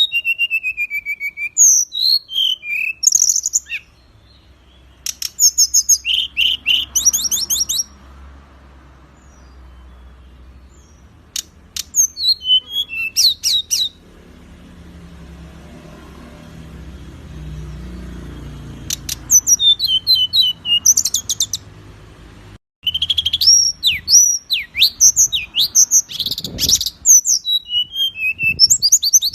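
Songbird song in bouts of rapid, sharp, high-pitched chirps, trills and quick downward-sweeping notes, separated by pauses of several seconds with only faint background noise. The sound cuts out abruptly for an instant a little past the middle, then the song resumes.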